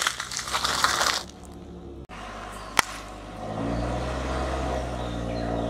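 A car tyre crushes a plastic-wrapped package with a loud crackling crunch that fades about a second in. Then comes a single sharp click, and from about halfway a car engine runs with a steady low hum as the car rolls slowly forward.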